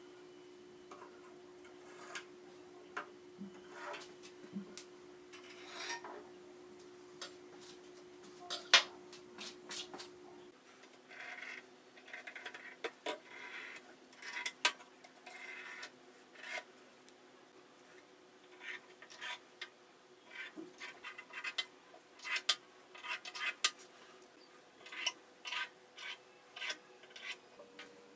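Steel hand tools (chisels, saws and steel rules) being handled on a wooden workbench: scattered light clinks and knocks as they are picked up and set down, with stretches of rubbing and sliding, and one louder knock about nine seconds in.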